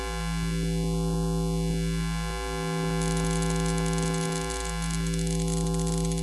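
Synthesizer background music with held chords over a steady low note and slow sweeping swells. About halfway through, a crackly hiss joins in underneath.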